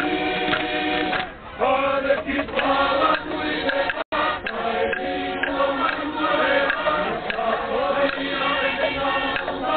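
A large group of Tongan dancers singing and chanting in unison, a traditional group dance song in long held notes broken by short pauses. The sound cuts out for an instant about four seconds in.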